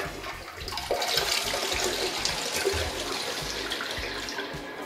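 Test flush of a newly installed TOTO toilet: water rushes into the bowl and swirls around it, starting suddenly and slowly tapering off.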